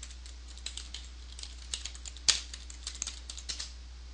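Typing on a computer keyboard: a quick, irregular run of keystrokes with one louder key strike a little past halfway, stopping shortly before the end.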